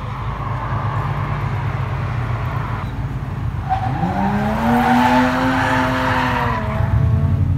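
Honda VTEC four-cylinder engines with Fujitsubo Power Getter exhausts rumbling at low revs, echoing in a concrete tunnel. About four seconds in, one engine revs up, holds a high exhaust note for a couple of seconds, then drops back near the end.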